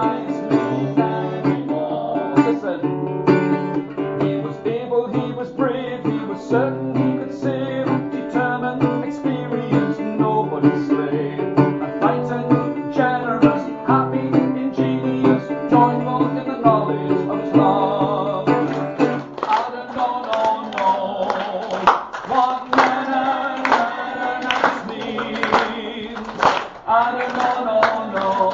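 Acoustic guitar played with plucked notes and strumming, with a man singing over it. About two-thirds of the way through, the low bass notes drop out and the playing turns to sharper, more rhythmic strumming.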